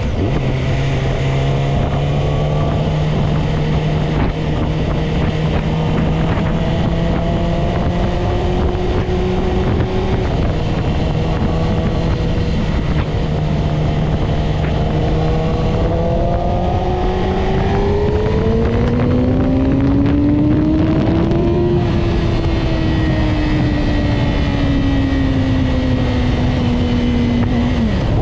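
Yamaha YZF-R6 inline-four motorcycle engine heard on the ride: it holds a steady pitch at first, climbs in revs for several seconds past the middle, then winds down slowly, with a quick dip in pitch near the end. A steady rush of wind noise runs under it.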